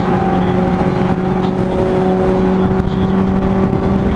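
Sport bike's engine holding a steady highway cruise, one even drone that keeps its pitch, over a haze of wind and road noise while passing alongside a semi-truck.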